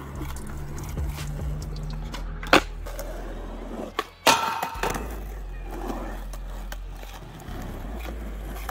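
Skateboard wheels rolling on rough asphalt, with a sharp clack about two and a half seconds in. Just after four seconds the board goes briefly quiet in the air, then its metal trucks land on a low rail and grind with a ringing scrape before it rolls on.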